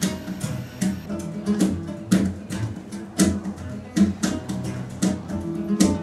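Background music: acoustic guitar strummed in a steady rhythm, with ringing chords between the strokes.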